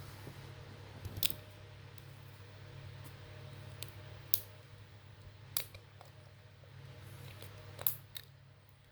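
A series of about six sharp clicks at irregular intervals, like small objects being handled or snipped, over a steady low hum.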